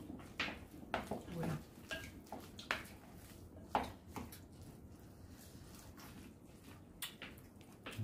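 Light clicks and taps of chopsticks against bowls at a meal, scattered over the first four seconds, with one more near the end.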